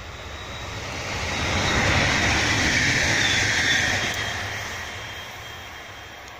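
Red electric multiple-unit passenger train passing close by at speed: a rushing rumble of wheels on rails that builds, peaks for about two seconds, then fades as the train runs away, with a faint high whine on top.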